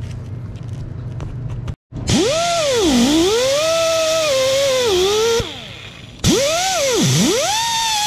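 Handheld power driver motor whining as it is worked on a bolt at the engine block. Its pitch sweeps down and back up several times, it eases off briefly near the middle and then speeds up again. A steady low hum comes first, before a short break.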